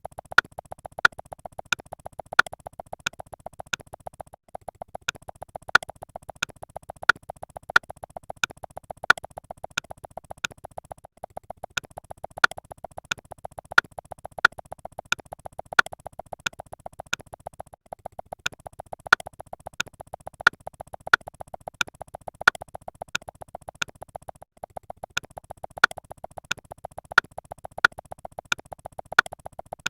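Electronic synthesizer sound effect: a steady buzzing tone under a fast, even train of clicks, with a sharper click about twice a second.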